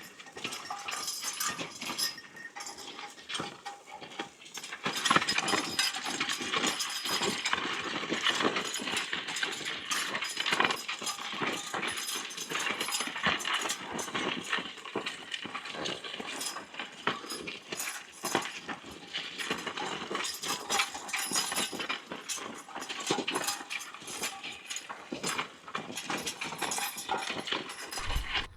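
Team of Percheron horses pulling a plough through stubble: harness and trace chains jingling and clinking steadily with hoof falls, a little louder from about five seconds in.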